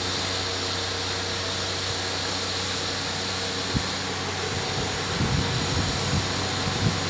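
Electric fan running steadily: a constant whoosh of moving air over a low motor hum, with a single low thump a little under four seconds in.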